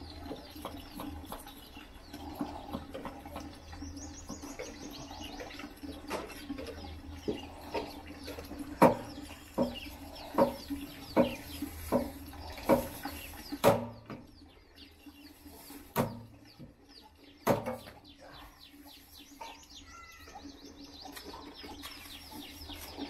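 A coconut knocked against the metal grill, a row of sharp knocks about one every second for several seconds, then two more. Birds chirp around it, with rapid high trills near the start and end.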